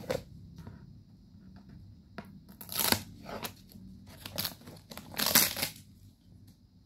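Cardboard packaging being torn open and handled by hand: two louder rips, about three seconds in and again about five and a half seconds in, with smaller rustles between.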